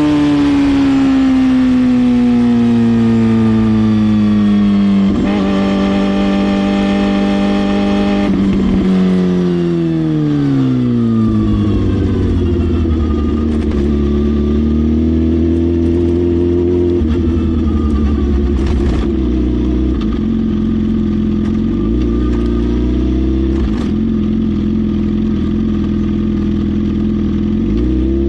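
Suzuki GSX-R750 inline-four with a full Brock's exhaust, its engine speed falling in a couple of steps over the first ten seconds or so, with short breaks between them. It then settles into steady low-rev running with small rises and dips.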